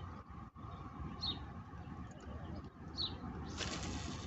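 A small bird gives two short, high, falling chirps about two seconds apart over a low steady rumble. A short rushing hiss comes near the end.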